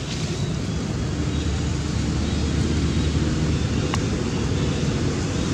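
Steady low background rumble with no animal calls, broken by one short faint tick about four seconds in.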